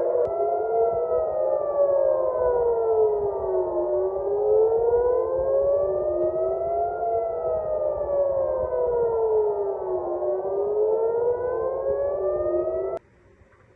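Air-raid warning sirens wailing, at least two rising and falling slowly out of step with each other so their pitches cross; they cut off abruptly near the end.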